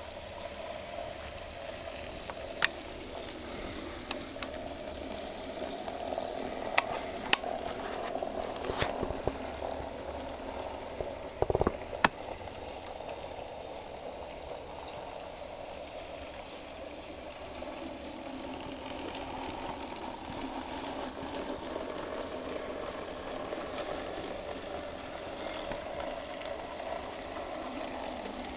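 Tiny model locomotives running on an Nn3 narrow-gauge layout: the small electric motors give a steady, faintly wavering high whine under the wheels running on the rail, with a few sharp clicks, bunched in the first half.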